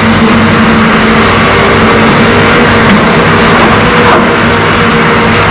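Hitachi ZAXIS 350H excavator's diesel engine running steadily under load as the machine swings, with a steady hum. A single brief sharp click comes about four seconds in.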